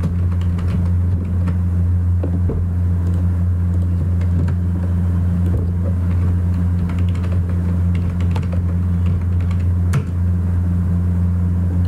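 Computer keyboard typing and mouse clicks, scattered light clicks over a loud, steady low hum. One sharper click comes about ten seconds in, as the form is submitted.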